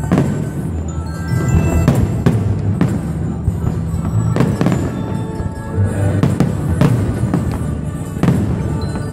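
Aerial firework shells bursting in quick succession, a string of sharp bangs, with music playing underneath.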